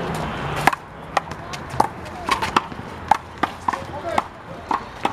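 Rally in one-wall handball with the big blue rubber ball: a quick, irregular series of sharp smacks as hands strike the ball and it hits the wall and the ground.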